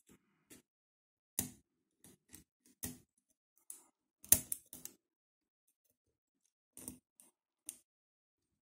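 Lock pick and tension wrench working in the keyway of a 50 Ruma padlock: scattered small metallic clicks and ticks, with the sharpest click and a short run of them a little past the middle.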